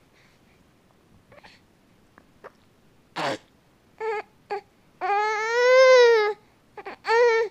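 Newborn baby fussing: a few faint grunts, then short squeaky cries, one long wail about five seconds in that rises and falls, and another short cry near the end.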